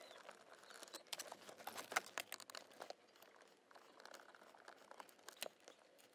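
Faint clicks and scrapes of a screwdriver turning screws out of a plastic lower dash panel, with small irregular ticks throughout.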